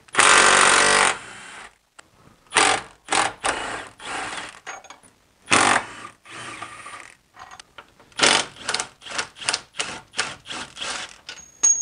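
Cordless impact wrench driving out a subframe bolt: one long, loud burst right at the start, then a string of shorter trigger bursts, quickest near the end, as the bolt spins out.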